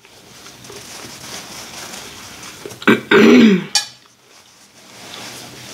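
Soft handling noise of hands and a paper napkin at the table, then about three seconds in a short, loud voiced sound from the eater, its pitch rising and falling, followed by a single click.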